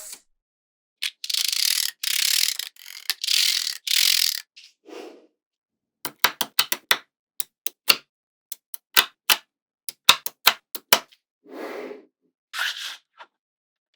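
Small magnetic balls being handled: a few seconds of rattling and scraping as the balls shift against each other, then a quick irregular run of sharp clicks as balls snap together one by one.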